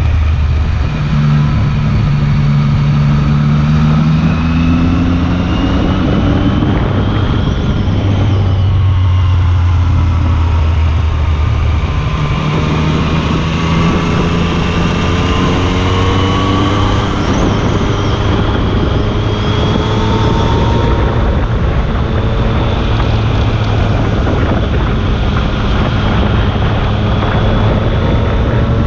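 Yamaha FZ-09's inline-three engine running through an Akrapovic carbon-fibre exhaust on the move. The engine note climbs and drops several times as the throttle is rolled on and eased off.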